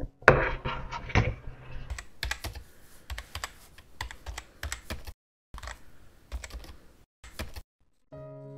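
Computer keyboard typing: quick key clicks in irregular runs, with a short pause in the middle, stopping about seven and a half seconds in. It opens with a sharp knock and about a second of clattering. Piano music starts just before the end.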